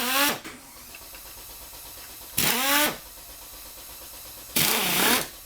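Impact gun firing in three short bursts of about half a second each, its motor pitch falling as it spins down after each burst, while it works a fastener loose on a two-stroke bicycle engine.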